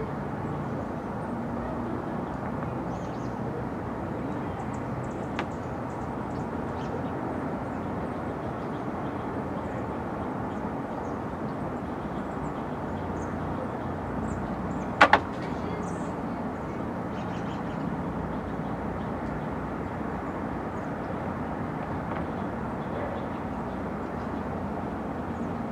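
Steady background rumble and hiss, with a faint click about five seconds in and one sharp, briefly ringing knock about fifteen seconds in.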